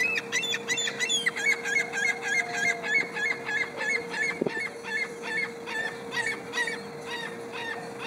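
Ring-billed gull giving its long call: a rapid series of short, high yelping notes, about four a second at first, slowing and growing weaker toward the end.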